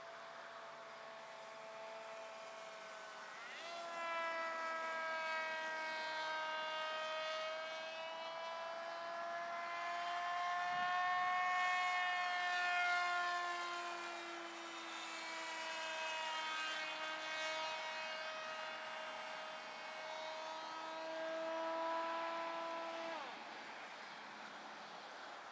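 Radio-control flying wing's motor and propeller buzzing as it flies overhead. The pitch jumps up and grows louder about three seconds in, wavers slowly up and down as the wing passes, then falls sharply near the end.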